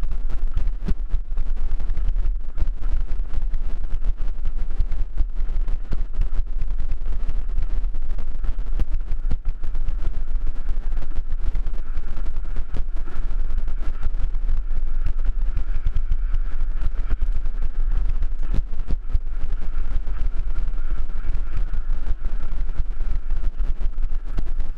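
Mountain bike descending a rough dirt trail, heard from a camera on the rider: constant wind buffeting on the microphone with rapid clattering and knocks as the bike runs over bumps. A faint steady high hum runs underneath, stronger around the middle.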